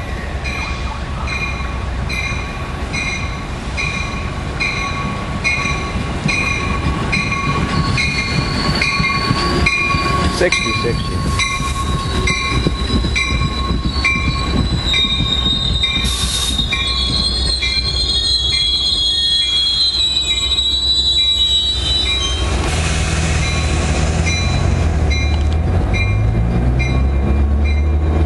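New Jersey Transit diesel commuter train running through the station, a steady low rumble that grows louder in the last few seconds. Wheels squeal for much of the middle stretch, over a steady ringing of about two strikes a second.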